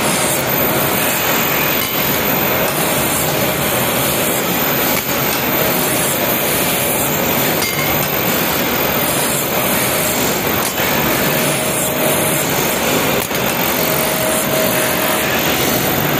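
Small belt-driven lathe running steadily as a drill in its chuck bores into brass plug pins held in a jig, with a faint whine lasting about a second now and then and a few light clinks.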